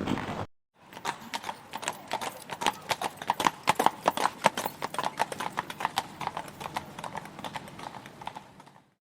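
Hoofbeats of a horse on hard ground, a quick clip-clop that grows louder and then fades away, as if it approaches and passes.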